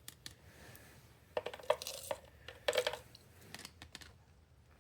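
Two brief bursts of metallic clinking and rattling, about a second apart, among light clicks: metal parts of an air hammer being handled.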